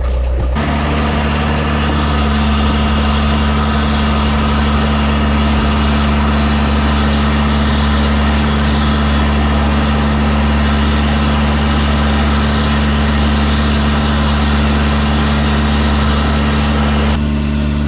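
High-pressure sewer jetter running steadily, its engine-driven pump giving a low, even hum under a loud rushing hiss of water forced through the drain line. The hiss comes in about half a second in and drops away near the end, while the hum carries on.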